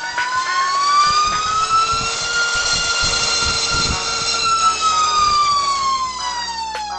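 Diatone TOKA 2207.5 2650KV brushless motor spinning a 5-inch Gemfan Hurricane three-blade prop on a thrust stand through a throttle ramp. Its whine and prop noise rise in pitch to full throttle about two seconds in, hold briefly, then fall away as the throttle comes back down.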